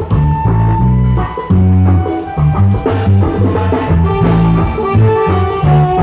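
Live reggae orchestra playing: a deep bass line and drums and congas under saxophones and trumpets playing a horn line.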